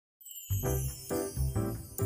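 Background music that starts a moment in after a brief silence, opening with a high falling glide over a regular bass beat.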